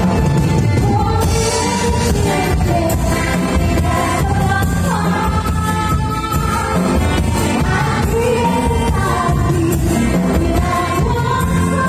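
Live band playing disco dance music, with women singing into microphones over electric guitars, keyboard, drum kit and tambourine.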